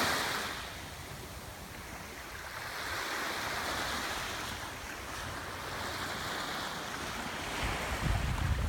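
Surf washing on a beach: a steady hiss of breaking waves that swells and eases, with low buffeting from wind on the microphone near the end.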